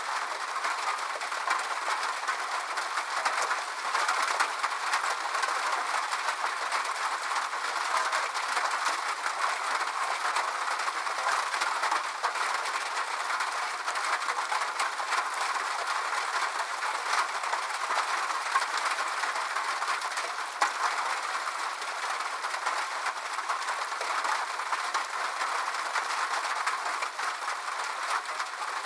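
Rain falling on a roof: a steady, dense patter of drops that keeps on without a break.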